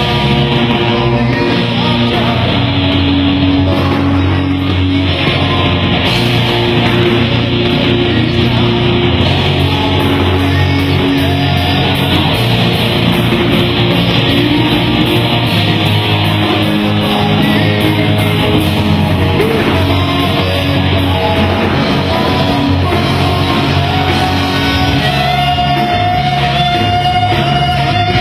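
Rock music with electric guitar and a singing voice, playing steadily and loud.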